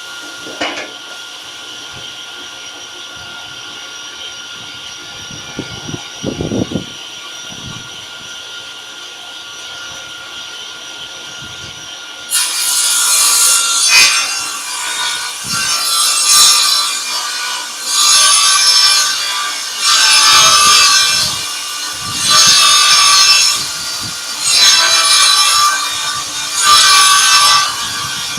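A table saw runs with a steady hum and a couple of knocks. About twelve seconds in, it starts ripping a long board into strips, and the cutting noise swells and eases about every two seconds as the wood is fed through.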